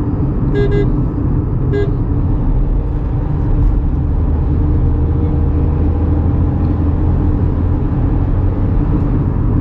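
Tata Punch's 1.2-litre three-cylinder petrol engine and road noise heard from inside the cabin at around 80 km/h: a steady drone whose low hum grows stronger about four seconds in. The engine noise is noticeably loud in the cabin. Two short high tones sound about a second apart near the start.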